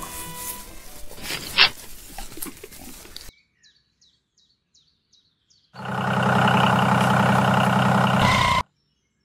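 Loud steady engine sound with a fast pulse, like a small diesel running; it starts abruptly about six seconds in and cuts off about three seconds later, going with a toy power tiller. Before it come rustling and a sharp snap as rice seedlings are pulled up by hand, then a short hush with a row of faint bird chirps.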